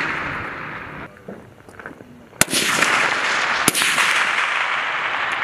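H&K M110A1 7.62 mm semi-automatic rifle firing two shots about a second and a quarter apart, each sharp crack trailing off into a long echoing rumble across the range. At the start, the echo of an earlier shot fades away.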